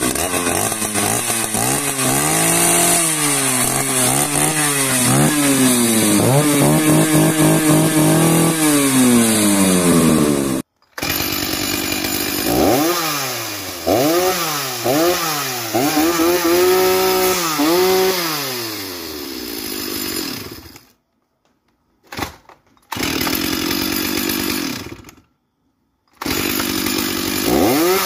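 Two-stroke chainsaw engines revved over and over at no load, the pitch climbing and falling with each blip of the throttle. The sound breaks off suddenly about ten seconds in and twice more in the second half.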